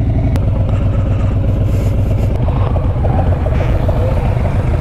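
Motorcycle engine running steadily at low road speed on a dirt road: a continuous low rumble.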